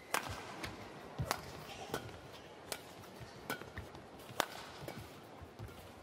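Badminton rally: rackets striking the shuttlecock in a fast exchange, about six sharp hits spaced under a second apart, the loudest about four and a half seconds in.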